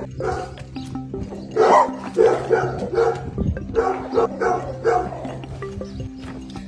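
A dog barking in a run of short barks, over steady background music.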